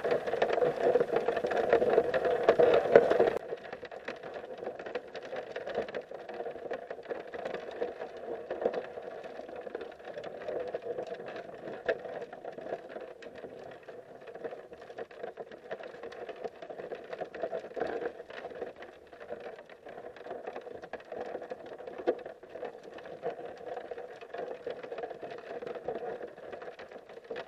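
Creek water moving past a camera held underwater: a muffled, steady rush covered with many small clicks and ticks. It is louder for the first three seconds or so, then drops abruptly to a quieter, even level.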